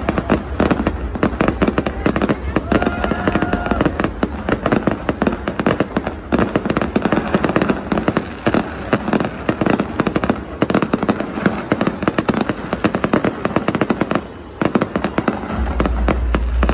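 Aerial fireworks display, with loud bangs and crackles of shells bursting in rapid, near-continuous succession. The barrage thins briefly about fourteen seconds in.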